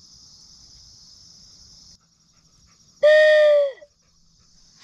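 Crickets trilling steadily, fading about two seconds in. About three seconds in, a single loud pitched cry of under a second holds one note, then slides down in pitch as it ends.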